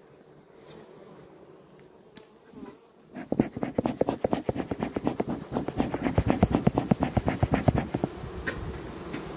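Honeybees buzzing at an open hive while a bee smoker puffs smoke over the frames. A quick pulsing runs from about three seconds in until about eight seconds, then fades back to a steadier hum.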